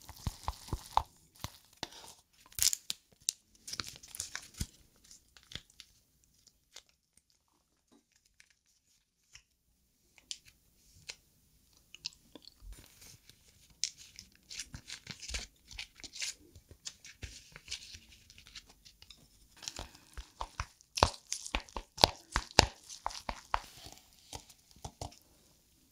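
Close-miked mukbang eating sounds: wet crunching and chewing in sharp crackly bursts, pausing for a few seconds near the middle, then busier again towards the end.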